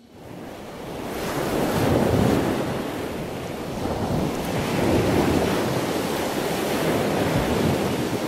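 Ocean surf: an even rush of waves breaking and washing in. It fades in at the start and swells twice, about two and five seconds in.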